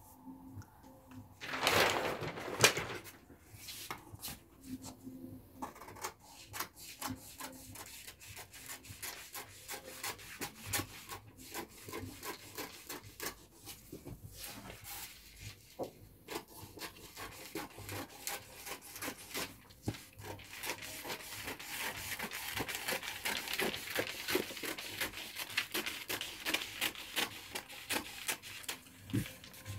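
Scissors cutting through a large sheet of pattern paper: a long run of small snips with paper rustling, the cutting hiss growing stronger in the second half. A louder rustle of the paper sheet comes about two seconds in.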